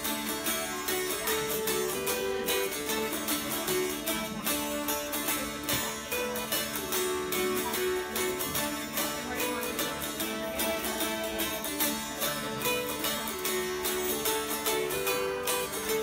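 A group of mountain dulcimers strummed together, playing an old-time reel in unison: a quick melody over a steady drone note.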